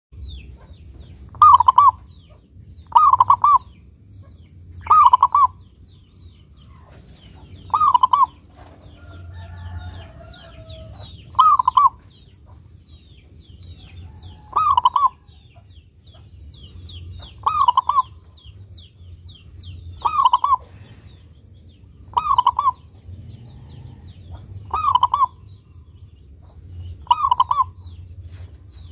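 Zebra dove (perkutut) cooing: a short, clear call repeated about every two to three seconds, with faint chirping of small birds and a low hum behind it.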